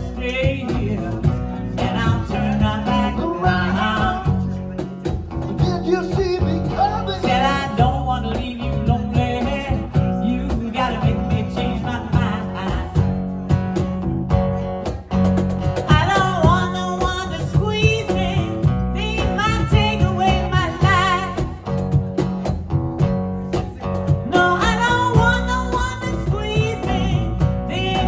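Live band playing a cover with acoustic and electric guitars, bass and a cajon keeping a steady beat, with a woman singing lead in stretches.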